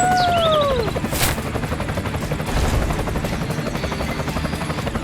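A small motor running with a rapid, steady rattle. A pitched tone falls away at the start, and a short hiss comes about a second in.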